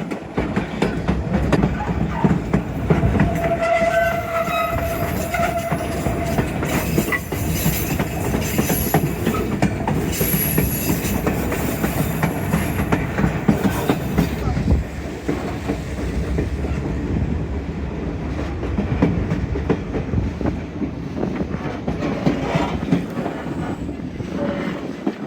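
White Pass railway passenger train running along the track: a continuous rumble and clatter of wheels on the rails, with thin high squeals from the wheels about a third of the way in.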